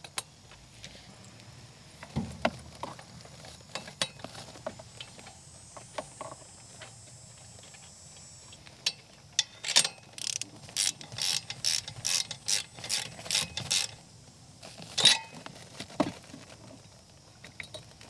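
A ratchet wrench clicking in a quick regular run of strokes, about three a second for about five seconds, as a spark plug is turned on a Generac standby generator's V-twin engine. Scattered clicks and knocks of tool handling come before, and one louder clack comes after.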